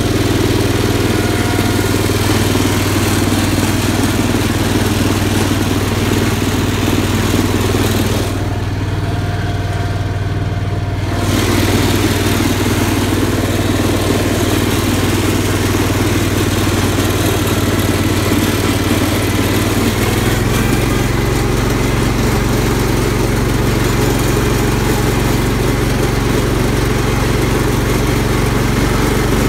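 Cub Cadet garden tractor engine running steadily while the tractor is driven across a lawn. It is briefly quieter about nine seconds in, and the engine note shifts slightly lower around twenty seconds in.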